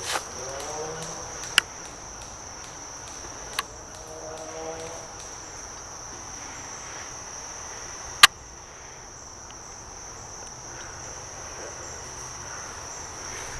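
Four single sharp airsoft gun shots, spread out and several seconds apart, the last one the loudest. Under them runs a steady high-pitched insect drone.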